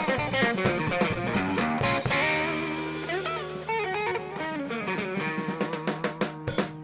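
Live rock band's instrumental outro led by electric guitar with quick note runs over a held bass note, settling into a ringing final chord near the end.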